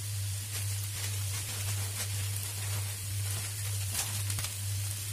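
Potatoes and onions frying in oil in a pan: a steady sizzle with faint small crackles, over a constant low hum.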